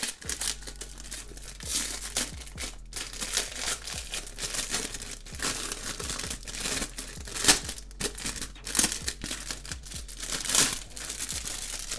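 Clear plastic wrapping being peeled and pulled off a paper-covered box, crinkling and crackling in irregular bursts, with the sharpest crackle a little past halfway through.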